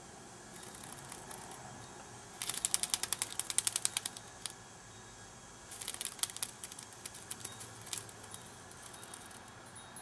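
A captured cicada buzzing in two bursts of rapid rattling clicks, the first the loudest and a second weaker one about six seconds in: the alarm noise a cicada makes when it is caught or handled.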